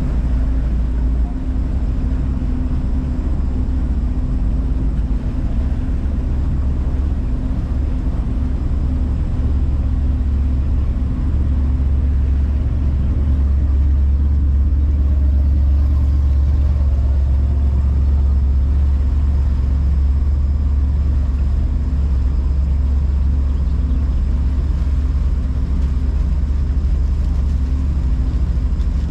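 Motorboat under way, its engine running steadily with a deep, low sound that grows a little louder about halfway through.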